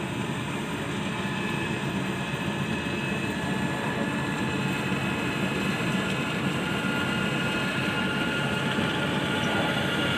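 Rice combine harvester running steadily, its engine and threshing machinery a continuous mechanical drone with a faint high whine.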